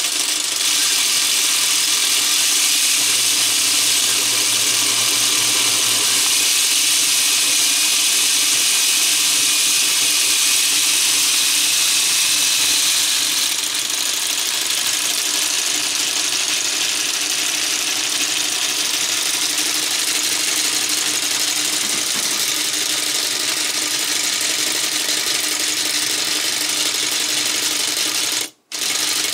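LEGO 8858 three-cylinder engine model running: a steady, rapid plastic clatter of its square pistons and rods going up and down, with a mechanical whir. It drops a little in level about halfway and breaks off for an instant near the end.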